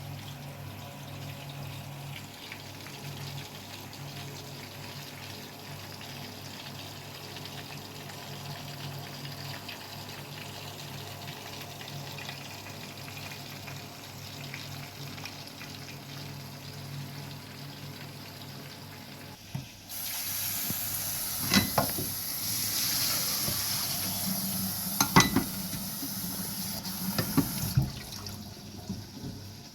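Water running from a kitchen tap into a sink, a steady rush. About twenty seconds in, the flow turns louder and brighter, with a few sharp knocks against the sink. It cuts back shortly before the end.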